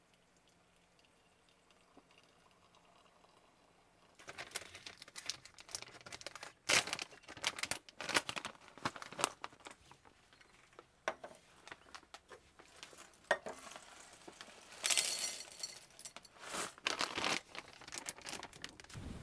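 Irregular crinkling of packaging and clinks of dishes being handled, starting about four seconds in after a quiet stretch.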